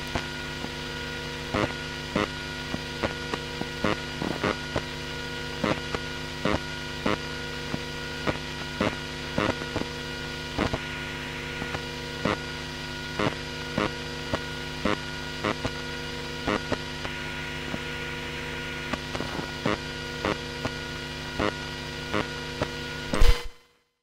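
Computer hard disk drive running: a steady hum and whine from the spinning platters, with irregular clicking from the read/write heads seeking, about two clicks a second. Near the end a loud click, then the sound cuts off.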